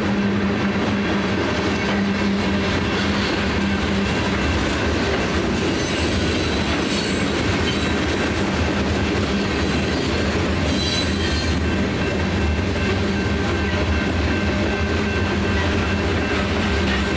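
A freight train of tank cars and covered hoppers rolling past: a steady rumble of steel wheels on rail, with two brief bursts of high wheel squeal about six and ten seconds in.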